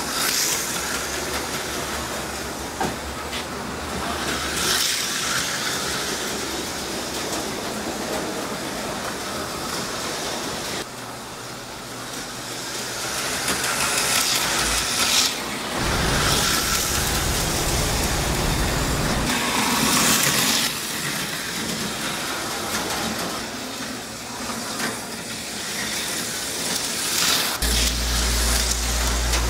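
HO-scale Auto World Thunderjet slot cars racing, their small pancake motors whirring and their pickups and tyres hissing along the plastic track. The sound swells every few seconds as a car passes close, and a low hum comes in about halfway through and again near the end.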